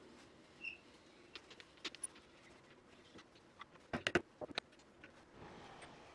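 Scattered light clicks and taps, with a quick cluster of sharper knocks about four seconds in.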